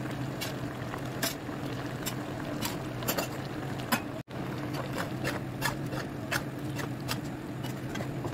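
A pan of chicken and vegetable stew cooking on the stove: many short, irregular clicks and pops over a steady low hum. The sound cuts out for an instant about four seconds in.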